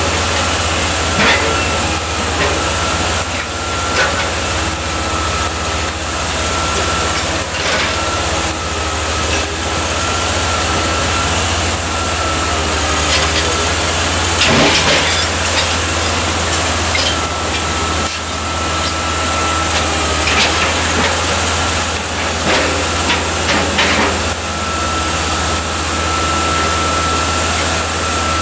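Manitowoc 14000 crawler crane running steadily under load, a deep diesel drone with a thin steady whine over it, and scattered knocks and one louder clatter about halfway through.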